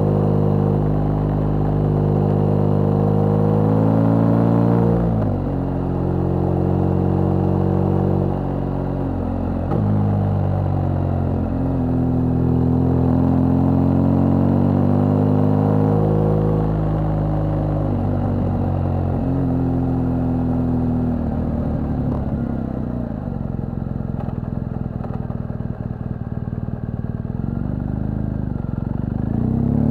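BMW R1200GS flat-twin boxer engine pulling a motorcycle uphill, its revs climbing and dropping again and again through the bends. In the second half it eases off and runs quieter at lower revs.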